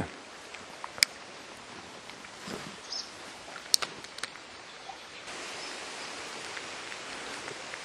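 Steady quiet outdoor hiss, with a few sharp ticks about a second in and near four seconds.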